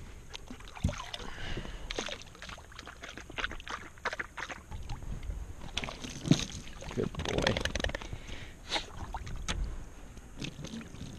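Water lapping against a small fishing boat's hull, with scattered sharp clicks and knocks from movement aboard, busiest about six to eight seconds in.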